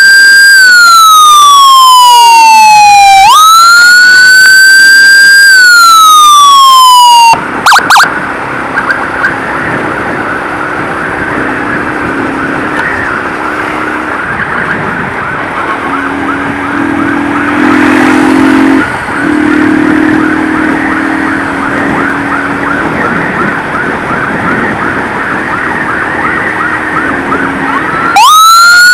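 Emergency sirens of an ambulance escort: a loud wail rising and falling about every three seconds cuts off about seven seconds in, and a quieter fast-warbling siren carries on until the loud wail starts again near the end.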